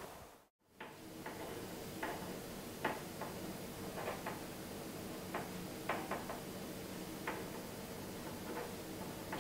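Ballpoint pen writing on lined paper laid on a wooden table: irregular short scratches and taps of the pen strokes over a steady low room hum. The sound drops out briefly about half a second in.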